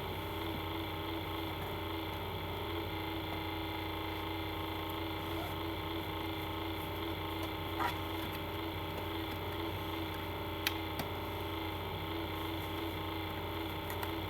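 Steady electrical hum, with a few faint clicks about eight and eleven seconds in from a plastic DVD case and discs being handled.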